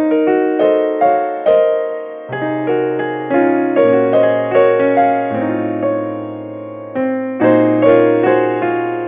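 Background piano music: a gentle melody of separate struck notes, with a low bass line coming in about two seconds in.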